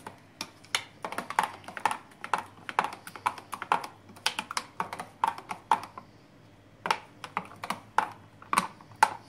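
A metal spoon stirring thick fig purée and milk in a glass jar, clicking and scraping against the glass in quick, irregular taps. There is a short pause about six seconds in.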